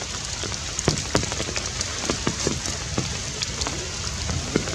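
Steady rain falling, with many scattered sharp taps of heavy drops striking close by at irregular moments.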